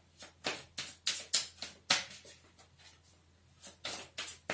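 Tarot cards being handled on a table: a quick run of short clicks and taps in the first two seconds, a pause, then a few more near the end.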